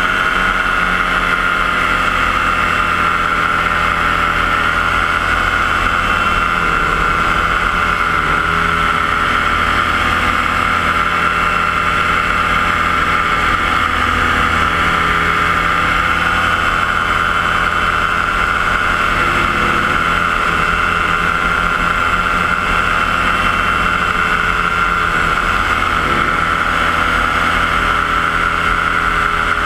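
Paramotor's Yamaha JR120 engine and propeller running at a steady throttle in flight, a loud, even drone.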